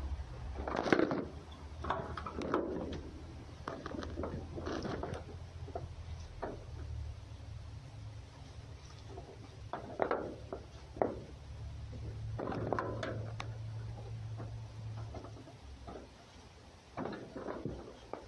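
A fox and a cat moving on a board right by the microphone: irregular rustling and scraping of fur and paws in short bursts every few seconds, over a low hum.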